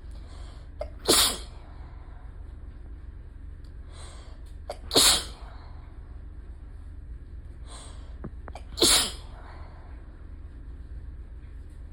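A person sneezing three times, about four seconds apart, each sneeze with a short catch of breath just before it.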